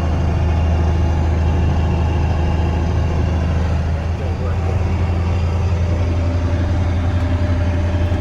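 Steiger Panther 1000 four-wheel-drive tractor's diesel engine running steadily while driving, a deep drone that dips briefly about four seconds in.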